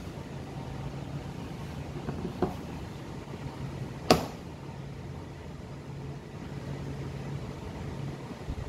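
A metal rod handled against a plastic folding camping box: a few light knocks about two seconds in, then one sharp click about four seconds in. A steady low hum runs underneath.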